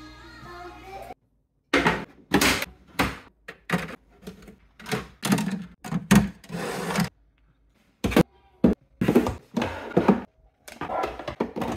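Hard clear plastic food-storage containers and lids clacking and knocking against each other and the drawer organiser as they are handled and set in place. It comes as a quick, irregular series of knocks, with a brief pause about a second in and another a little after the middle.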